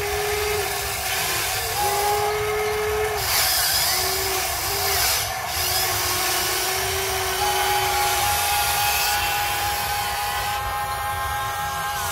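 Motors of a Huina 580 RC excavator whining as the boom, arm and bucket move, in several stretches that start and stop and shift in pitch, over a steady hiss.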